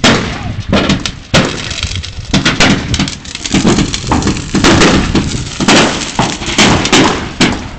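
Fireworks exploding in rapid succession: sharp bangs about once a second with dense crackling between.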